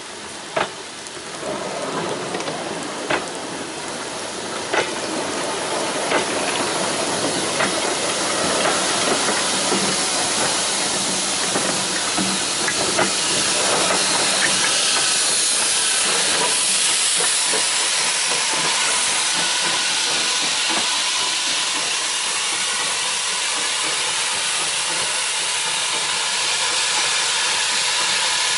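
Steam train passing close by. A few sharp clicks come in the first several seconds, then a loud, steady hiss of steam from the green steam tank engine builds through the first half and carries on as the engine draws away.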